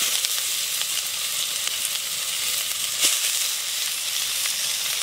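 Raw pork pieces sizzling hard in hot oil with sliced onions and red chillies in a metal wok, a steady frying hiss. A single sharp pop stands out about three seconds in.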